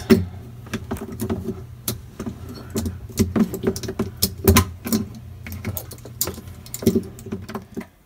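Phillips screwdriver unscrewing screws from a refrigerator's plastic back panel: irregular clicks and taps of the metal bit against the screws and plastic, over a steady low hum.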